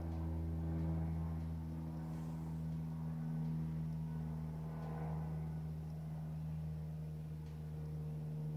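A steady low hum, with a few faint small clicks.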